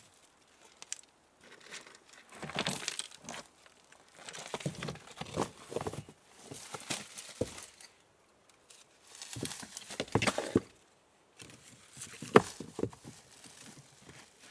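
Stones knocking and scraping together as rocks are picked up and shifted by hand, in several separate bouts of clatter and gritty rustling, with one sharp stone-on-stone knock near the end.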